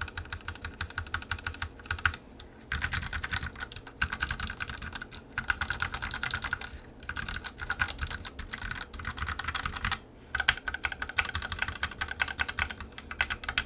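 Fast typing on a KBD67v2 MKII mechanical keyboard with lubed Gateron Black Ink linear switches, a brass plate and PBT keycaps: a rapid run of keystrokes broken by short pauses about two, seven and ten seconds in.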